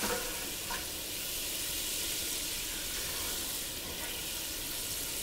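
Minced garlic sizzling steadily in hot melted butter in a saucepan as it starts to brown.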